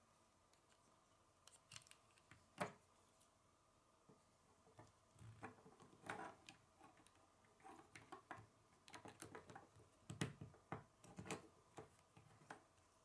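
K'nex plastic connectors and rods clicking and snapping together as they are fitted by hand: faint, irregular clicks, the sharpest about two and a half seconds in and again about ten seconds in.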